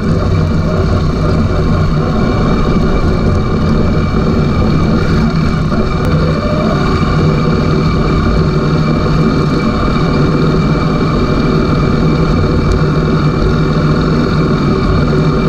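Hero Xpulse 200's single-cylinder engine running steadily as the motorcycle rides over a rocky dirt trail, picked up close by a camera mounted on the bike near the front wheel.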